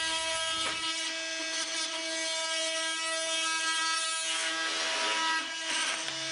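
Bosch GOP 250 CE oscillating multi-tool cutting plastic with its straight plunge blade. The motor gives a steady buzz, and the cutting noise grows stronger about four seconds in.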